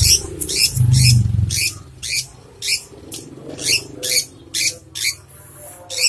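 A lovebird giving short, harsh squawks over and over, about two a second, while it is held and its overgrown beak is sanded; the bird is protesting at being held rather than in pain, in the owner's view. A low rumble of handling about a second in.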